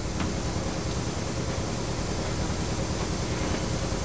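Steady rushing workshop background noise with a low hum, and one faint tap just after the start.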